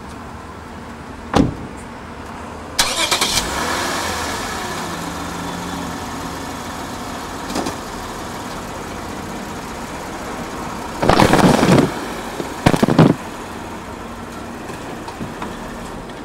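A thump, then a car engine is cranked and starts about three seconds in, its pitch falling as it settles to idle. About eleven seconds in come two loud noisy bursts a second or so apart as the car rolls over the cardboard shipping box, and then the engine idles on.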